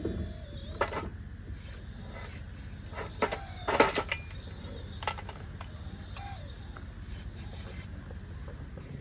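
Dirt and stones tipped from an RC excavator's bucket clatter into a scale dump truck's tipper bed, in a few rattling drops with the loudest burst about four seconds in. A steady low motor hum from the models runs underneath.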